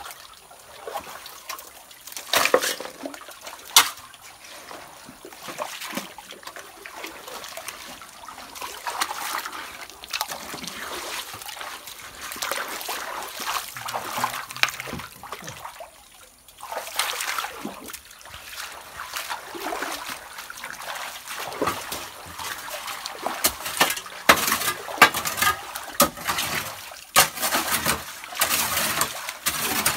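Shallow muddy water splashing and sloshing as hands and tools work through gravel and mud, with scattered sharp knocks of stones and tools.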